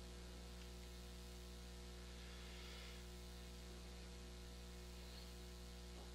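Near silence, with a faint steady electrical mains hum: a low tone with evenly spaced overtones.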